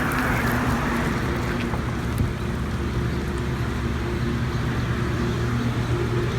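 A vehicle engine idling steadily with a low hum. A passing van's road noise fades out in the first half-second.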